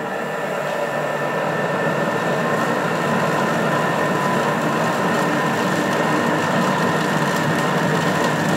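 Thermomix food processor running steadily at speed 5, its blade mixing flour, cocoa, margarine and egg into a dough.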